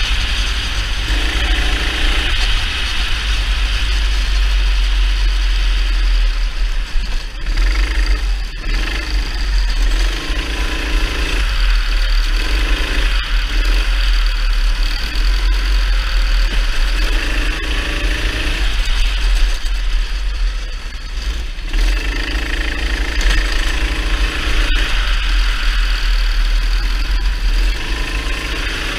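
Kart engine running at race pace, heard from on board. Its note rises and drops away every second or two as the throttle goes on and off through the corners, over a steady low rumble.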